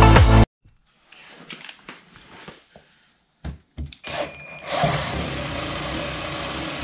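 Cordless drill running under load, opening a quarter-inch pilot hole in the car's underside to 3/8 inch for a rivet nut; it starts about four and a half seconds in after a couple of knocks. Before that, electronic music stops abruptly about half a second in.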